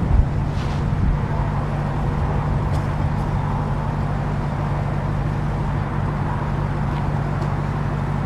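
Engine idling steadily with a low, even hum and no revving.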